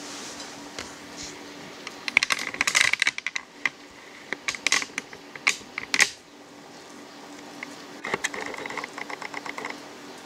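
Hands pressing fresh white-bread crumbs onto an egg-dipped chicken cutlet over a plate of crumbs, for the second layer of breading: three spells of rapid dry crackling and clicking, each a second or two long.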